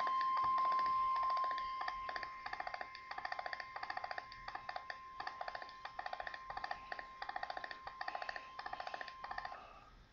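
NOAA Weather Radio warning alarm tone, a steady single-pitch tone at about 1050 Hz held for roughly ten seconds, signalling that a warning message is about to be read. About two seconds in, a repeating pattern of rapid beeps in short bursts, a bit more than one burst a second, joins it.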